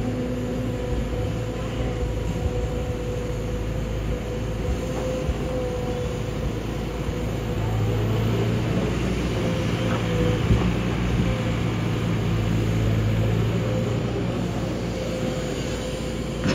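Kobelco SK200 hydraulic excavator's diesel engine and hydraulics running under load as it digs and lifts earth. It is a steady drone that grows louder partway through, with a few faint knocks of the bucket in stony soil.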